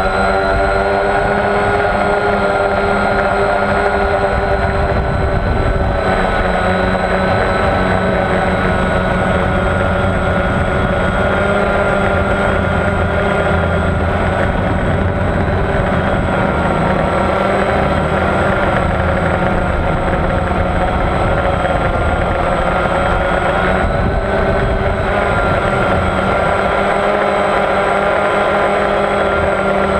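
Motor and propeller of an FPV model aircraft heard from on board: a steady droning whine with small drifts in pitch, over a rumble of wind on the microphone.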